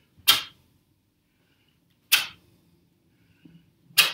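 Three sharp swishing snaps of a taekwondo uniform's sleeves, about two seconds apart, one with each knife-hand block and strike of a right-left-right combination.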